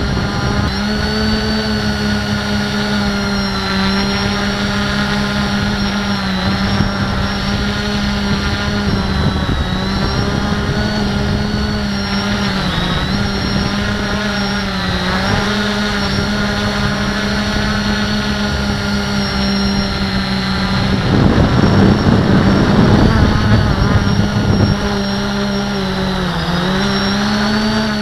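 Q450 quadcopter's brushless motors and propellers droning steadily, heard from the camera on board, the pitch dipping briefly every few seconds as the throttle shifts. A few seconds past the middle, a louder rushing noise swells over the drone and fades.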